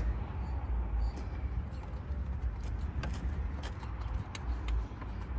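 Faint scattered clicks of a bolt being threaded by hand into a new belt tensioner pulley, over a steady low rumble.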